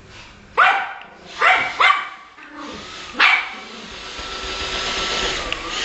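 Yorkshire terrier barking four times in short, sharp yaps, three in the first two seconds and one a little after three seconds. After that a Roomba robot vacuum cleaner's steady motor hum builds up.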